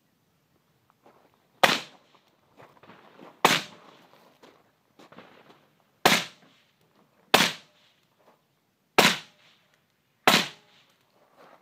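Six rifle shots fired one at a time at an uneven pace, each about one to two and a half seconds apart, with a short echo after each crack.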